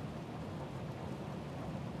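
Steady rain with a low rumble of thunder.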